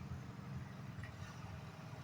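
A low, steady engine rumble.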